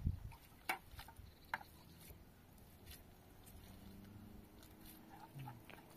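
A few scattered light taps and clicks, with a faint low steady drone entering about halfway through.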